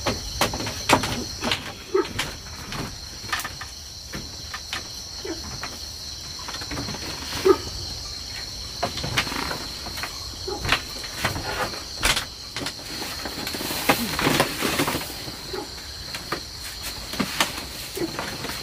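Steady, high-pitched chorus of insects such as crickets. It runs under irregular sharp clicks and knocks of something being handled, which are the loudest sounds.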